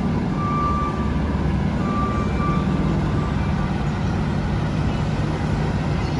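Fire engine's diesel engine running with a steady low rumble as the rig pulls out of the station, with a high beeping tone sounding on and off during the first few seconds.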